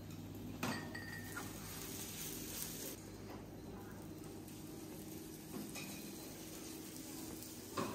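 Faint clinks and knocks of dishes and cutlery over a steady low hum, with a sharper clink about a second in and another near the end.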